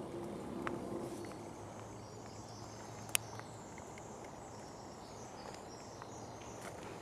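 Quiet outdoor ambience: a steady background hiss with faint high-pitched chirring, and one sharp click about three seconds in.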